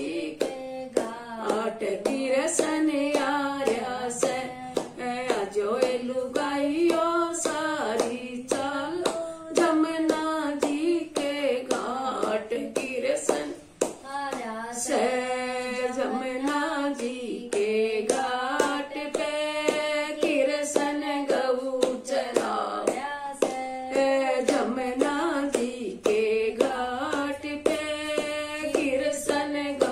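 A woman singing a Haryanvi Krishna bhajan solo, clapping her hands to a steady beat. No instruments are heard, only her voice and hand claps.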